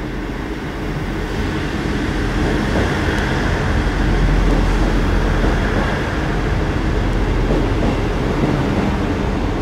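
South Western Railway Class 159 diesel multiple unit running into the platform close by: a steady diesel engine and wheel rumble that swells over the first few seconds, then holds as the coaches pass.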